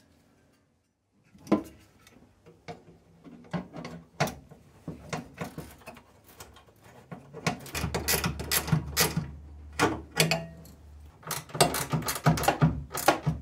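A zinc-plated steel fuse and relay holder being handled and fitted against a car's steel body panel: a string of sharp metallic clicks, knocks and rattles, starting about a second in and growing busier in the second half, with a low hum underneath for a couple of seconds near the middle.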